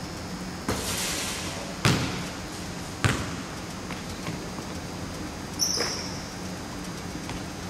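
Basketball hitting a hardwood gym floor, sharp bounces about two and three seconds in with a short ring-out in the hall, and another thud near six seconds. A brief brushing noise about a second in, just after a shot.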